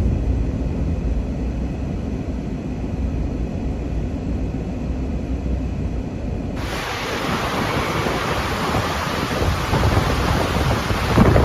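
Hurricane wind rumbling and buffeting the microphone. About six and a half seconds in, it cuts abruptly to heavy rain hissing under the storm, with a louder low rumble near the end.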